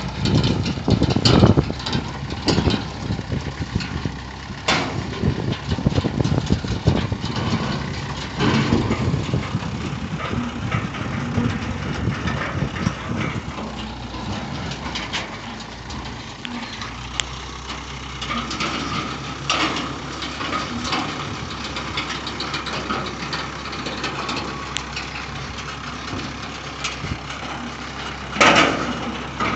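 Truck engine running slowly under a steady hum, with irregular clanks and knocks from a steel bale elevator as it picks up and lifts small square hay bales. A sharp knock near the end is the loudest sound.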